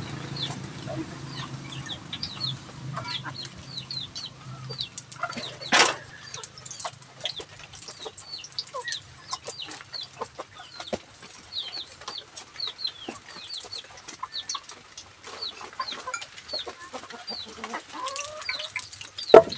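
Chickens clucking, with many short high chirps scattered throughout. A sharp knock sounds about six seconds in, and another near the end.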